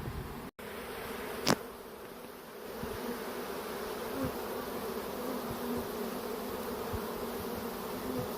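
Swarm of honey bees buzzing, a steady hum of many wings. A single sharp click about a second and a half in, with a brief gap just before it.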